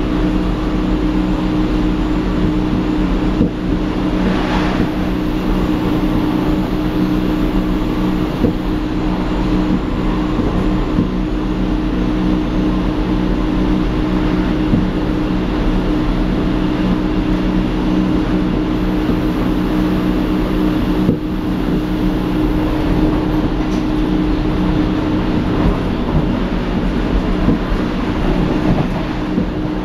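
Inside a Berlin S-Bahn class 480 electric train under way: steady running and rolling noise with a strange drone of several held low tones.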